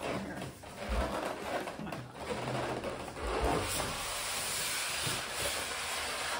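Styrofoam packing rubbing and scraping against the inside of a cardboard box as it is slid out, with a couple of dull thumps.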